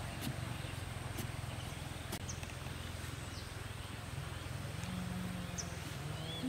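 Hand digging in sandy soil: faint intermittent scrapes and soft taps as soil is scooped out, over a steady low background rumble.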